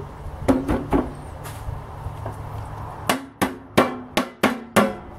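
Lid being hammered shut on a metal gallon can of acrylic enamel paint: a few knocks about half a second in, then sharp, ringing blows about three a second from about three seconds in.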